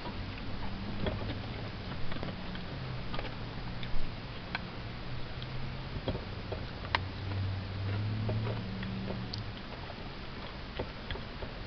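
Scattered light clicks and handling noises inside a car cabin, irregularly spaced, over a low steady hum.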